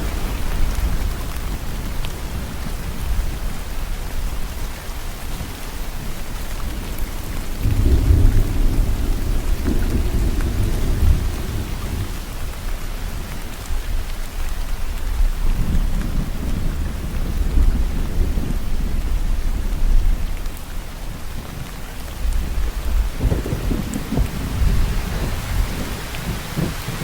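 Steady rain falling, a constant hiss, with low rolling thunder rumbling in slow swells: about eight seconds in, again around sixteen seconds, and near the end.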